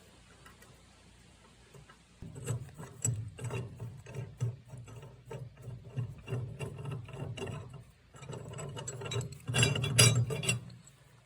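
Steel bolt being worked through a square steel tube seated in a trailer receiver hitch: irregular metal clicks and rattling start about two seconds in, with a denser burst near the end.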